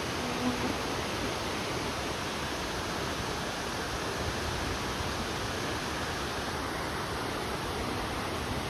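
Shallow rocky mountain stream rushing over and between boulders: a steady, even rush of water.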